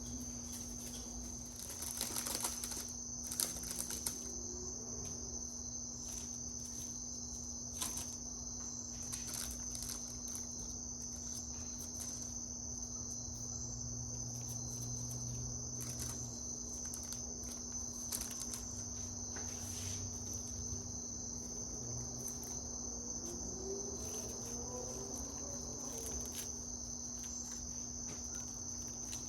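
Crickets trilling steadily at a high pitch over a low, steady hum, with a few soft clicks and taps about two to four seconds in.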